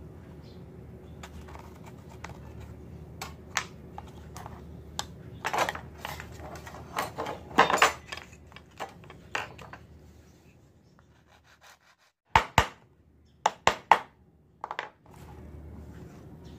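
Thin pieces of light wood being handled, rubbed and knocked against a tabletop: scattered light clicks and short scrapes, then a few sharp knocks about two-thirds of the way through.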